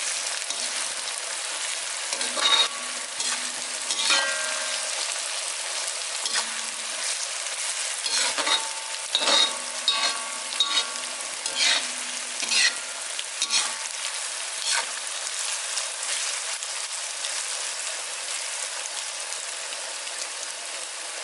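Grated coconut sizzling steadily in hot oil in a metal pan, being fried until it turns reddish. A steel spoon stirs and scrapes it across the pan in short strokes, most of them in the middle.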